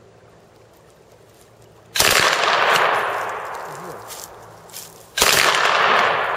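Two bursts of automatic fire from an MG-34 machine gun about three seconds apart, each starting abruptly and trailing off in a long echo.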